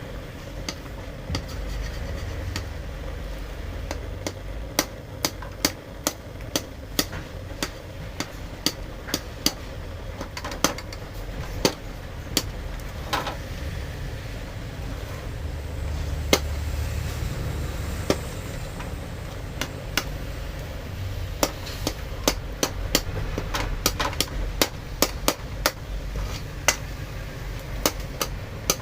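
Many sharp knocks and clicks at an irregular pace, coming in runs of several a second, over a steady low rumble.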